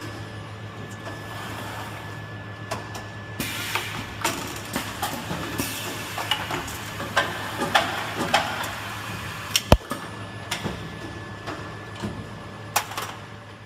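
Plastic injection moulding machine running: a steady low hum, joined a few seconds in by a hiss and a quick, irregular run of clicks and knocks, with one sharp click near the end.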